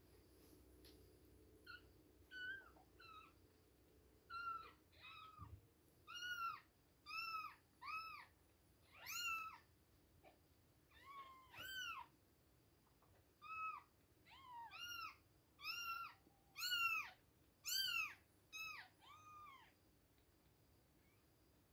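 Two-week-old kittens mewing: a string of about twenty short, high-pitched mews, each rising then falling in pitch, starting about two seconds in and stopping a couple of seconds before the end.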